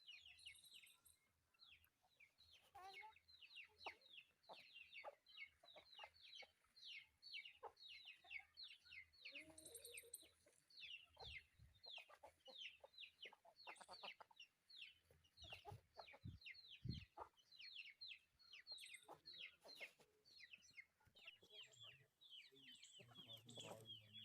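Chickens: a steady stream of short, high, falling peeps, several a second, typical of chicks, with a few lower clucks mixed in.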